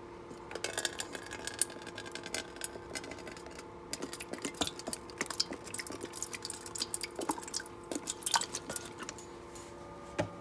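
Hydrogen peroxide poured from a plastic bottle into a metal pot of water: a thin trickle with many small irregular splashes and clicks, stopping near the end.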